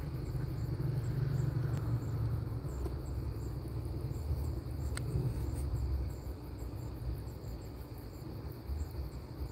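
Evening insects chirping, short high chirps repeating steadily, over a low steady rumble.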